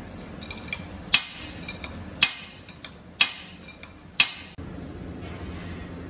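A hand tool taps the metal head of a wire-insulation extruder four times, about a second apart, each strike sharp with a brief metallic ring. A few lighter clicks fall between the strikes, over the steady low hum of the running extruder.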